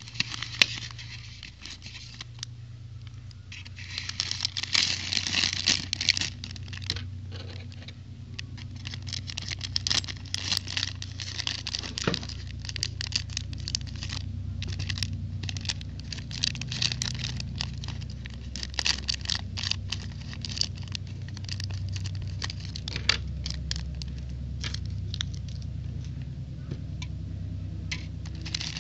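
Clear plastic bag of toy building bricks crinkling and rustling as it is handled and opened, with the loose plastic bricks clicking and rattling against each other inside. A low steady hum runs underneath.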